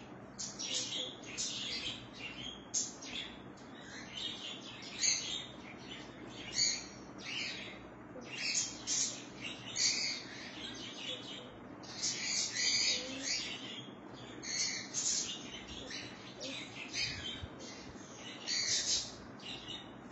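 Birds chirping: a rapid, irregular run of short high chirps.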